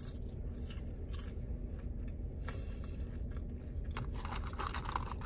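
Close-up chewing of fried fast food, with small crunches and mouth clicks over a steady low rumble. Near the end comes a brief rustle of fingers in a paper fries carton.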